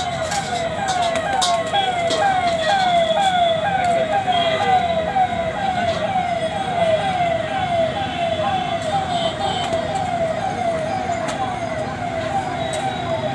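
A siren-like electronic tone, falling in pitch over and over about three times a second, over a steady background din.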